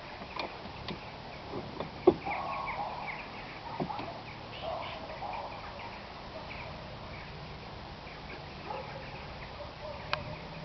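Quiet background with small birds chirping repeatedly and a few sharp clicks, the loudest about two seconds in.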